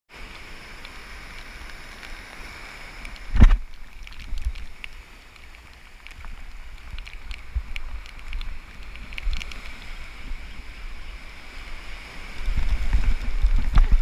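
Wind buffeting the microphone over the hiss of breaking surf, with one sharp thump about three and a half seconds in. The wind buffeting grows heavier near the end.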